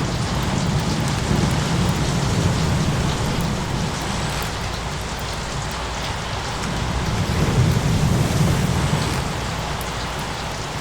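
Steady rain with low rolling thunder; the rumble swells again about seven seconds in and then fades.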